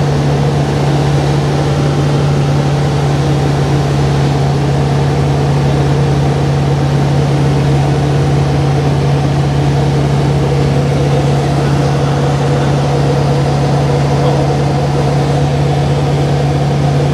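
AT-3 light aircraft's Rotax four-cylinder engine and propeller droning steadily in cruise, heard from inside the cockpit, with a constant low hum and no change in pitch.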